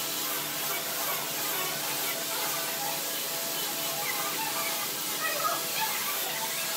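Steady background hiss with a faint hum, and faint, broken distant voices in the background.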